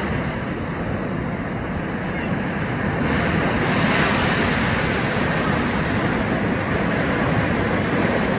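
Ocean surf washing onto a beach, with wind noise on the microphone. The rushing swells a little about three to four seconds in.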